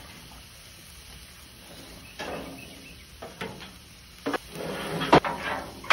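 Scattered short thumps and clanks as raw pork butts are set onto a smoker's expanded-metal grate from a metal sheet pan, beginning about two seconds in and loudest near the end.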